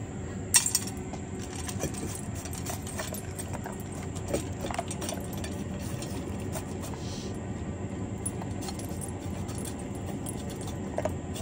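A dog eating dry kibble from a stainless steel bowl: small clinks and rattles of kibble against the metal bowl, with a sharp clink about half a second in.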